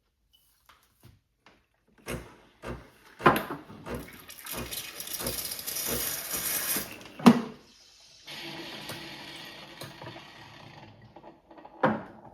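Espresso and latte-making equipment in use: a few knocks and clatters, a stretch of hissing, a sharp clack about seven seconds in, then a steadier hiss with a low hum from the machine, and another knock near the end.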